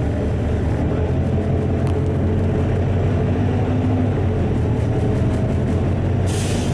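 LiAZ-4292.60 city bus heard from inside the cabin while driving slowly: its diesel engine and drivetrain run as a steady low rumble. A short hiss comes in near the end.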